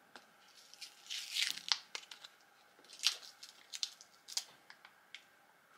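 Tape and insulation wrap on a lithium iron phosphate battery pack's cells crinkling and rustling as they are handled and pulled at, in short scattered bursts with a few small clicks.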